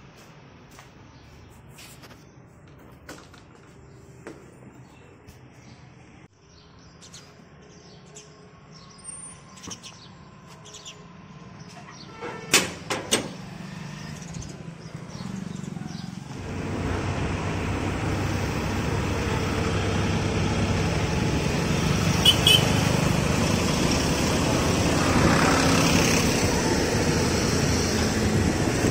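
A few sharp clicks, then a motor scooter riding along a road: its small engine running with a steady rush of road and wind noise, much louder than the quiet handling sounds before it.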